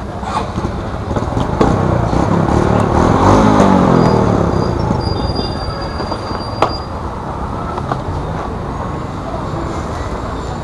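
A motor vehicle passing close by: an engine rumble that swells to a peak a few seconds in and then fades, with a thin high squeal in the middle. A single sharp click comes about two-thirds of the way through.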